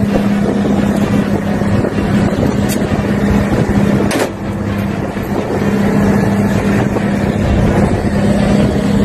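Boat engine running steadily at speed, a continuous drone over the rush of water thrown up by the hulls. A brief knock about four seconds in.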